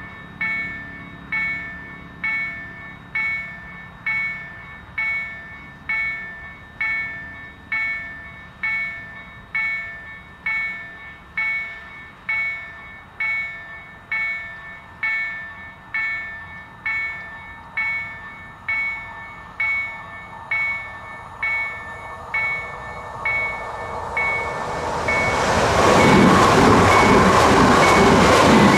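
Level crossing warning bell striking about once a second. Near the end a Pesa Elf 2 electric multiple unit comes in and passes over the crossing, its rumble building to the loudest sound in the last few seconds over the bell.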